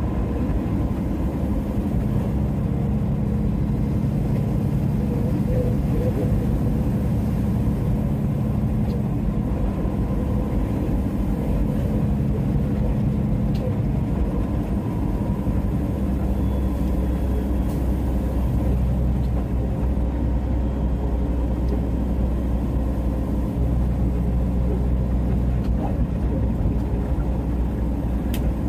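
Peterbilt semi truck's diesel engine droning steadily at highway cruising speed, with tyre and road noise, heard from inside the cab.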